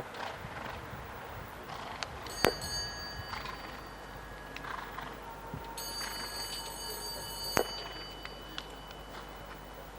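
A bell rings twice, most likely the show-jumping judge's start bell. The first is a single sharp strike about two and a half seconds in with a brief ring. The second is a longer ring of nearly two seconds that ends in a knock.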